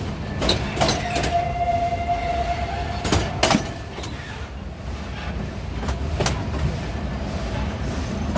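Narrow-gauge steam train rolling along the track: a steady rumble broken by sharp knocks and clanks. A thin, steady squeal starts about a second in and stops after about two and a half seconds.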